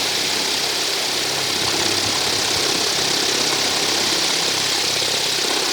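A propeller blower driven by a washing-machine motor, running steadily: a constant rush of air over a low motor hum.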